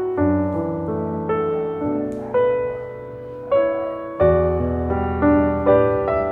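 Background piano music: chords struck every half second or so, each fading before the next.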